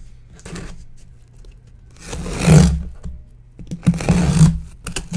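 A taped cardboard shipping box being opened: two rough scraping, tearing noises along the packing tape and cardboard, about two and four seconds in, with lighter rustling of the box between.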